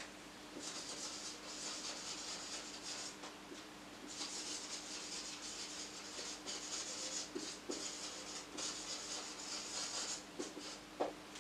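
Marker pen writing on a whiteboard: faint scratchy strokes in short runs with brief pauses between words.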